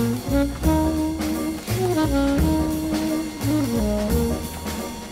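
Jazz music with a brass melody, saxophone-like, of held and moving notes over a low bass line.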